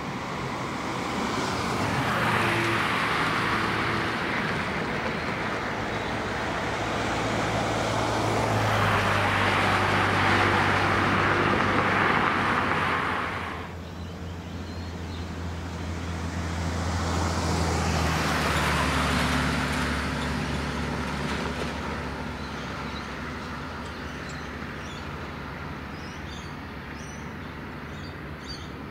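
Distant Airbus A380 jet engines at taxi power: a steady low rumble and whine. It swells and fades several times, drops suddenly about halfway through, then swells once more.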